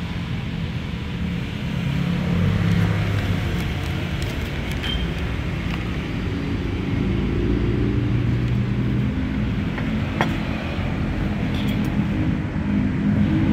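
Road traffic: vehicle engines running with a steady low rumble whose pitch shifts up and down. A single sharp click comes about ten seconds in.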